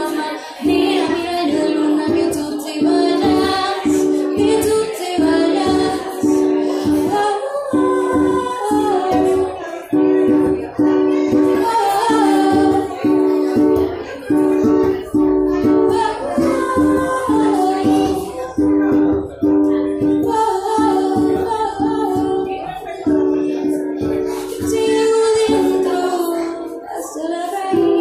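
A woman singing a slow Spanish-language ballad over a steadily strummed ukulele, the chords repeating in an even rhythm.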